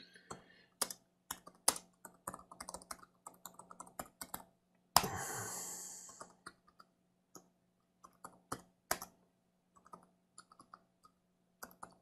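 Typing on a computer keyboard: quick runs of key clicks for the first few seconds, then sparser, slower keystrokes. About five seconds in there is a brief, louder rush of noise.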